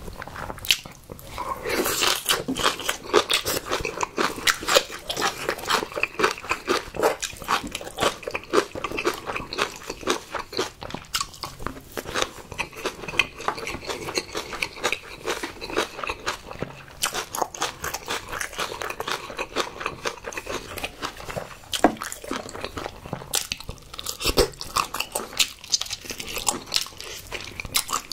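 Close-miked eating: a person biting into and chewing spicy marinated raw crab, a dense run of quick, irregular crunches and wet mouth sounds.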